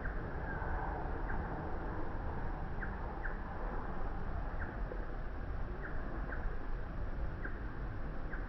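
Steady wind noise on the microphone with a low rumble, and about eight short, high chirps at irregular intervals, roughly one a second.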